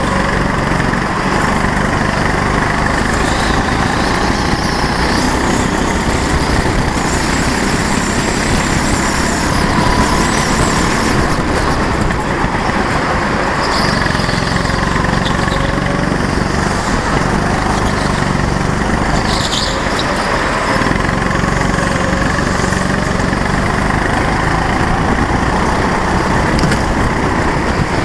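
Go-kart's small engine heard from on board, running hard with its pitch rising and falling as it revs, over a steady rush of wind and tyre noise. Brief high squeals come through now and then.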